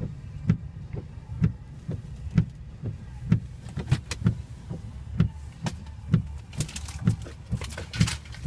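Windshield wipers thumping at each end of their sweep, about two thumps a second alternating strong and weak, over a steady low rumble inside the truck cab. A gust of hiss from wind or rain rises briefly near the end.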